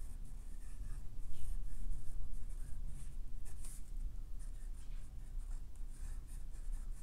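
Steel Omniflex flex nib of a Conklin Duragraph fountain pen scratching across lined paper as a word is written in cursive: a run of short, scratchy strokes, loudest about one to two seconds in.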